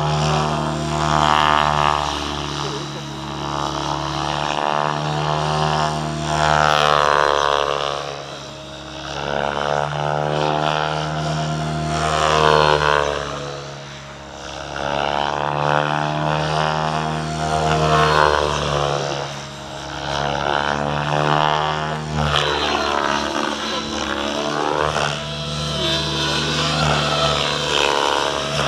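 Radio-controlled helicopter flying 3D aerobatics: its rotor and motor whine bends up and down in pitch, swelling louder and fading again every five or six seconds as it manoeuvres.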